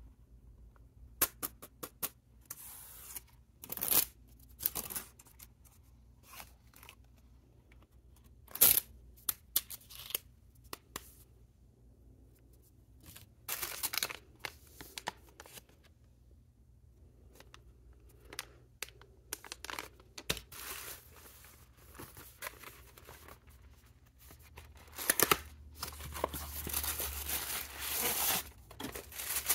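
Packaging being handled: plastic film and tissue paper crinkling and rustling in short bursts, with scattered clicks and taps. A longer, denser stretch of rustling comes near the end as the tissue paper is lifted.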